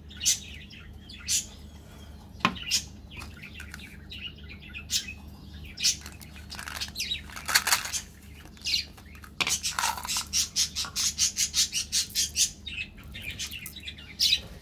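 Plastic lollipop wrapper crinkling as it is peeled off, then a small plastic candy bottle opened and shaken, its candy-coated chocolate buttons rattling out in a quick run of clicks for a couple of seconds near the end. A steady low hum runs underneath.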